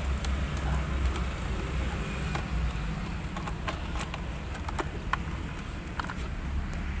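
Small sharp plastic clicks and rattles of wiring connectors and dashboard trim being handled, scattered through the middle of the clip, over a steady low rumble.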